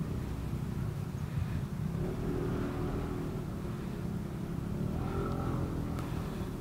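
Road traffic in a slow-moving jam: a steady low rumble of vehicle engines, with engine tones from nearby vehicles rising a couple of times and a single sharp click near the end.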